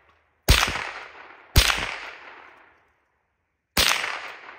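Three shots from a Remington Nylon 66 semi-automatic .22 LR rifle, the first two about a second apart and the third about two seconds later, each sharp crack followed by a fading echo.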